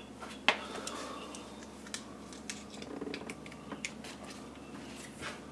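Scattered light clicks and clinks of hand tools being handled, irregular rather than a steady ratchet rhythm, with the sharpest click about half a second in.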